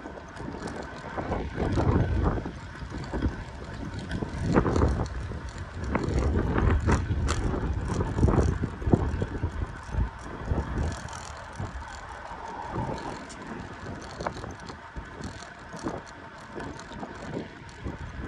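Wind buffeting the microphone of a camera on a moving bicycle, a low rumble that swells and fades in gusts, with scattered clicks and knocks from the bike rolling over the road.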